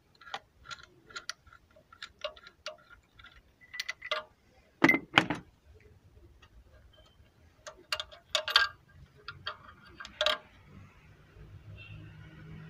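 Light metallic clicks and clinks of a socket wrench working a spark plug loose on a Renault 1.4 engine. A few sharper metal clinks come near the middle, and a low steady hum comes in near the end.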